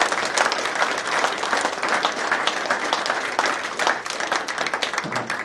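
A roomful of people applauding: dense, steady clapping from many hands.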